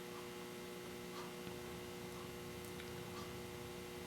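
Faint steady electrical hum with a few very faint soft ticks.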